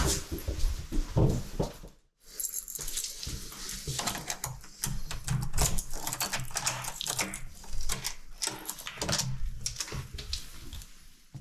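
Keys jangling, with many quick small metal clicks and rattles as a room door is unlocked.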